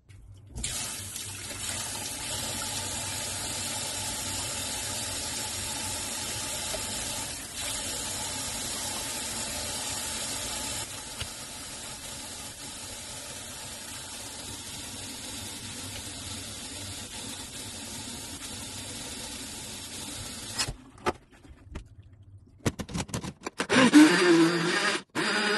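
A long, steady rushing noise. After it come a few clicks and clatters, then a small countertop blender runs near the end, blending strawberries and milk into a smoothie.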